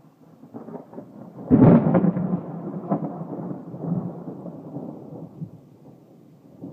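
A thunderclap. A low rumble builds, breaks into a loud crack about a second and a half in, then rolls and crackles on, fading over the next few seconds.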